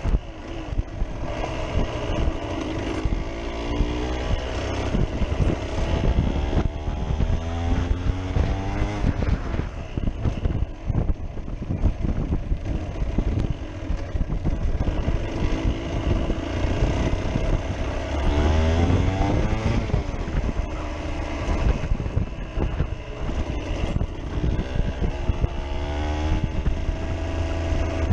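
Aprilia Tuareg Rally 125's two-stroke single-cylinder engine under hard riding, its pitch climbing in repeated rises through the gears and dropping back at each shift, with wind buffeting the microphone.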